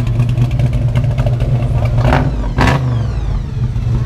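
Supercharged engine with a large top-mounted blower idling with a steady low rumble and blipped: a short rev about two seconds in, then a sharper one, after which the supercharger's whine falls away.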